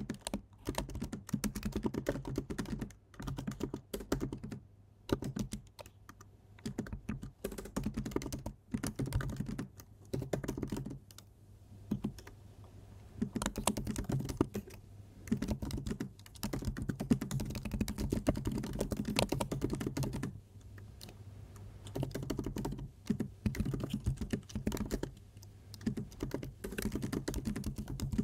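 Typing on a computer keyboard: runs of quick key clicks broken by a few short pauses.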